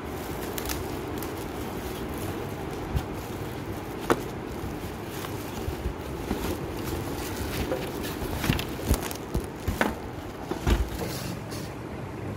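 Plastic wrapping and a cardboard box being handled during unpacking: scattered crinkles, clicks and knocks, busier in the second half, over a steady low background rumble.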